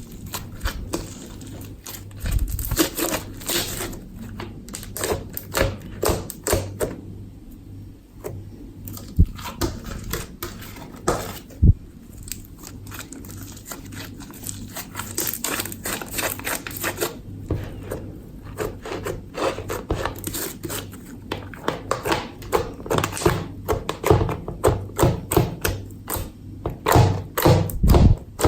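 Hands squeezing, poking and stretching slime: quick runs of small clicks and pops, thickening and getting louder near the end.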